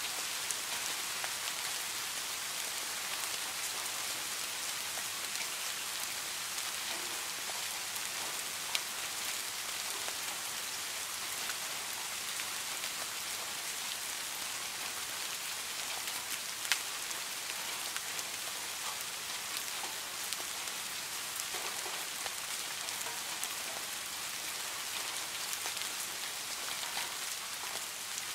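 Steady rain falling, an even hiss with scattered sharper drop ticks, two of them standing out about a third and about three-fifths of the way through.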